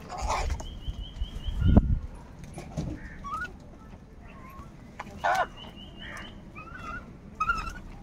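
House crows cawing as they squabble over food: harsh calls near the start, about five seconds in and near the end, with a loud low thump about two seconds in and scattered sharp clicks.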